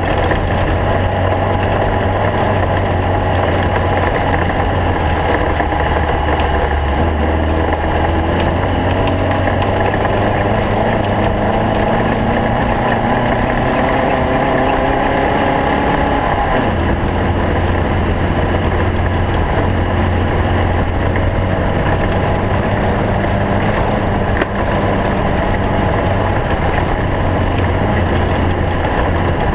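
A stock Volkswagen Beetle's air-cooled flat-four engine running hard, with its pitch climbing slowly and then dropping sharply about seventeen seconds in, as at a gear change or lift-off. There is a brief dip in the sound about twenty-four seconds in.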